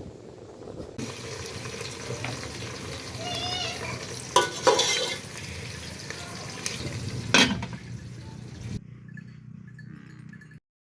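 Food frying and sizzling in a cooking pot while a metal spoon stirs it, clanking against the pot a few times. The sound drops away suddenly about nine seconds in.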